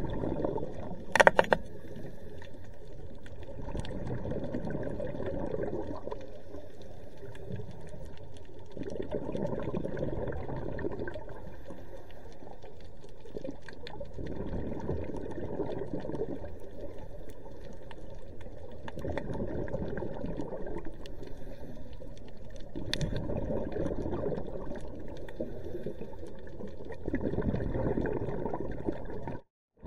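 Scuba diver's regulator breathing underwater: exhaled bubbles rumble in swells every four to five seconds over a steady watery rush. There are a few sharp clicks about a second in, and the sound drops out briefly near the end.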